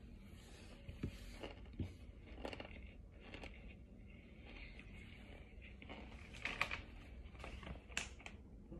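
Quiet, scattered crunches and rustles of Kingsford starch chunks being chewed and handled, the loudest crunch about two-thirds of the way through.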